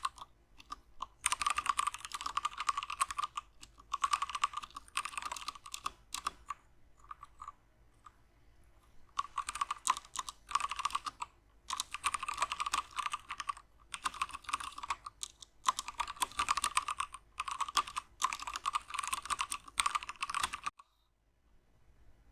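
Typing on a Womier K66 mechanical keyboard with Gateron Brown tactile switches: fast runs of keystrokes lasting a second or two, separated by short pauses, stopping near the end.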